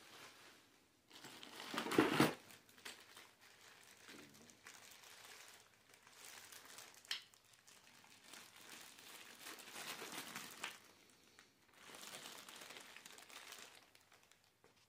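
Clear plastic wrapping crinkling as new door knobs are handled and lifted from their cardboard box, in uneven bursts, loudest about two seconds in. A short sharp click comes about seven seconds in.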